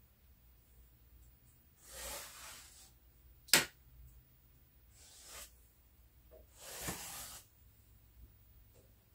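Felt-tip marker drawn along a straightedge on bare plywood: three scratchy strokes of about a second each, and one sharp click about three and a half seconds in, the loudest sound, like the marker or straightedge knocking on the wood.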